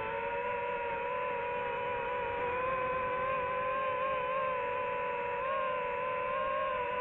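FPV drone motors and propellers running, a steady whine whose pitch wavers slightly as the throttle changes.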